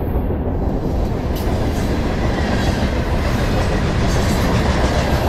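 Freight train cars rolling past close by: a steady, loud rumble and rattle of steel wheels on the rails.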